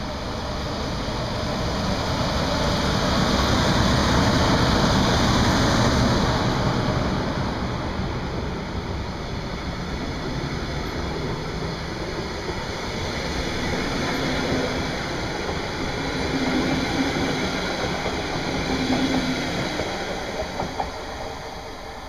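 DB Class 112 electric locomotive hauling a double-deck regional train past: the loud rumble of the locomotive going by peaks a few seconds in, then the steady rolling noise of the double-deck coaches' wheels on the rails follows, fading near the end as the train pulls away.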